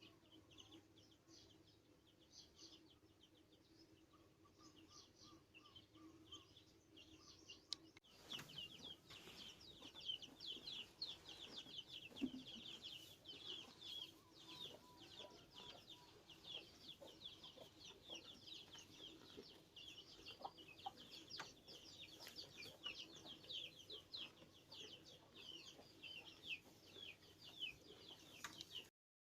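A faint, busy chorus of many short high chirps and cheeps from a flock of birds, with some clucking from poultry; the chirping becomes much denser after a cut about eight seconds in.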